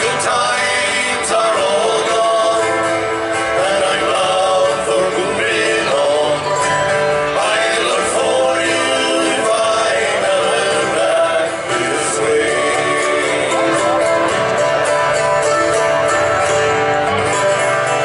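Live acoustic folk band playing: strummed acoustic guitar and mandolin, with male singing.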